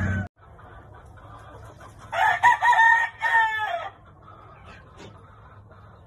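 A gamecock crowing once, a full cock-a-doodle-doo lasting about two seconds, starting about two seconds in.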